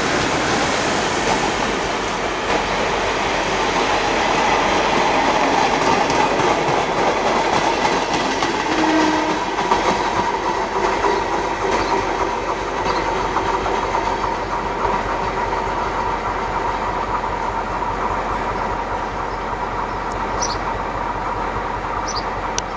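A work train hauled by a G22 diesel locomotive rolling past, with a steady rumble and wheels clicking over the rail joints. The noise eases slightly over time, and a few brief high wheel squeaks come near the end.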